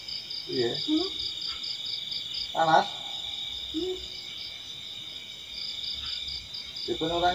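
Insects trilling steadily, with a higher pulsing chirp about five times a second above it that pauses for a few seconds in the middle. Short bits of voices break in, the loudest a little under three seconds in.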